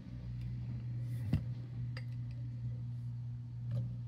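A few light clicks and one sharper knock about a second in, from a plastic ice-ball mold and a cut-glass rocks glass being handled, over a steady low hum.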